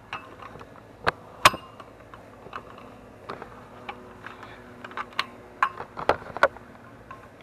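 Hard plastic bracket clip of a pool volleyball kit clicking and knocking against the metal leg of an above-ground frame pool as it is fitted on, a scatter of sharp clicks with two loud ones about a second in and another cluster near the end.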